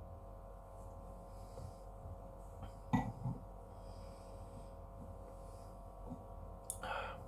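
Quiet room tone with a steady low hum, broken by a short knock about three seconds in and a brief hissing noise near the end.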